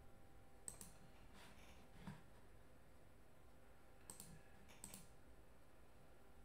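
Near silence: room tone with a handful of faint, short clicks, a few in the first two seconds and a couple more around four to five seconds in.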